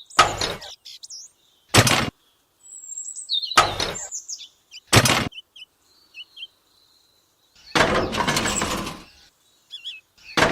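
Small birds chirping, broken by about six short harsh noises; the last two last about a second each.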